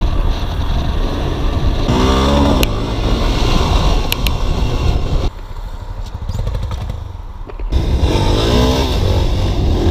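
Motorcycle engines under hard throttle during wheelies, with wind rushing over the mic and several abrupt changes in sound where the clips are cut together. The engine pitch climbs as the throttle opens about two seconds in and again near the end, with a quieter stretch in the middle.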